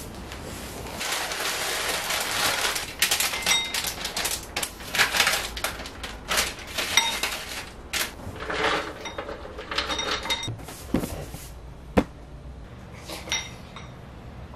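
A rustle at first, then a run of clinks and knocks from kitchen utensils against a porcelain bowl and plastic containers during food preparation, some ringing briefly. A single sharp click comes near the end.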